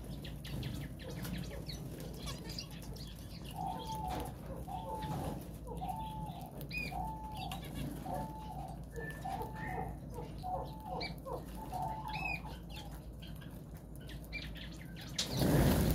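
Small aviary finches fluttering and chirping as they feed from a hand of seed, with short high chirps and a low call repeated about twice a second through the middle. A brief loud rustle near the end.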